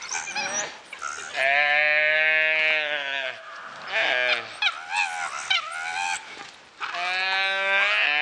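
Gaur calf bleating in distress while under attack by dholes: two long, drawn-out cries, one starting about a second and a half in and one near the end, each falling in pitch as it dies away, with shorter, higher squeaky cries in between.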